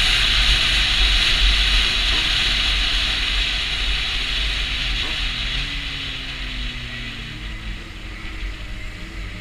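Wind noise rushing over the microphone on a moving motorcycle, with the low running of a Honda CB600F Hornet's inline-four engine underneath. The wind noise fades steadily over the first seven or eight seconds as the bike slows in traffic, and the engine note drops.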